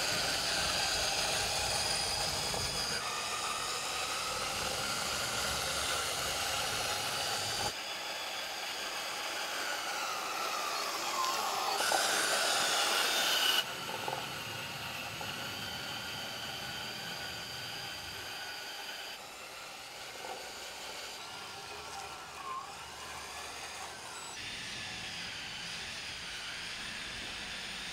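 Small RC tractor driving: the motor and gears of a 1/16-scale John Deere 9620RX tracked model whine, the pitch dipping and rising as it slows and speeds up. The sound changes abruptly several times and is loudest for a stretch around the middle.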